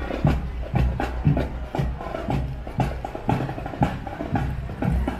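Percussion music with drums and sharp, wood-block-like strikes keeping a steady beat of about two strikes a second.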